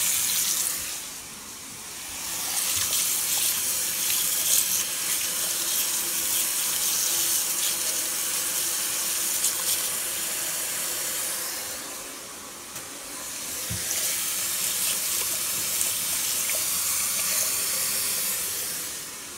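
Tap water running into a sink and splashing over plastic artificial plants as they are rinsed by hand. The flow sound dips briefly twice, near the start and about two thirds of the way through.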